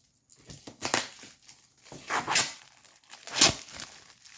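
Packaging wrap being torn open by hand, with three loud ripping tears about a second, two seconds and three and a half seconds in, and rustling between them.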